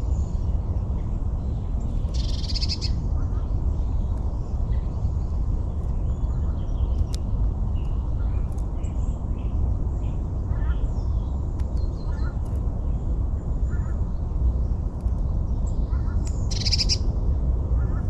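Small birds calling, with scattered short high chirps and two louder short bursts of rapid, high song, one about two seconds in and one near the end, over a steady low rumble.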